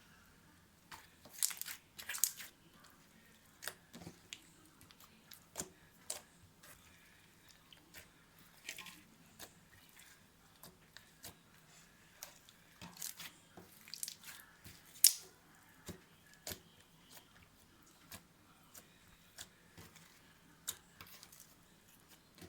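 Slime being squeezed and pressed by hand, giving irregular sharp clicks and pops, with a few louder crackling bursts.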